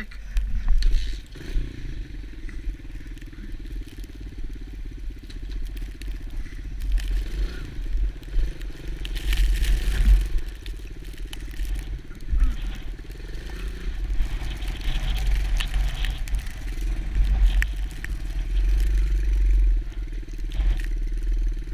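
Kawasaki KLX110's small four-stroke single-cylinder engine kick-started, catching right away, then running and rising and falling in loudness as the bike is ridden off over snow.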